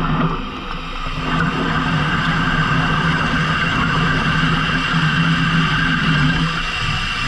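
Fishing boat engine running steadily under load, a constant low hum with engine noise over it. The level dips briefly about half a second in.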